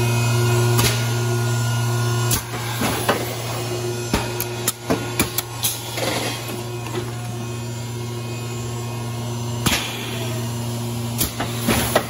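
Industrial machinery running with a steady low hum. The hum drops somewhat a couple of seconds in and comes back near the end. Scattered sharp clicks and knocks sound throughout.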